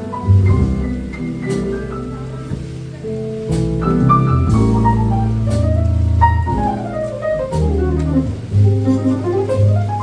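Live jazz quartet of piano, guitar, bass and drums playing a ballad. Sustained low bass notes lie under chords, and quick runs of notes fall and then rise through the middle.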